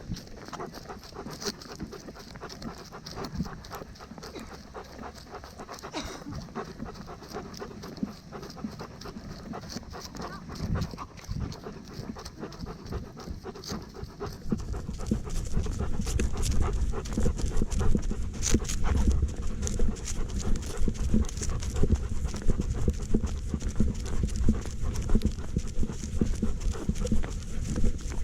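Dog panting close to the microphone, with rhythmic footsteps and the rub of movement. The panting and steps get clearly louder about halfway through.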